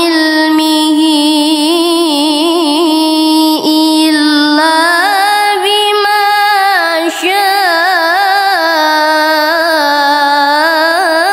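A young woman's voice reciting the Quran in the melodic tilawah style, holding long notes with wavering ornaments. The pitch steps up about halfway through.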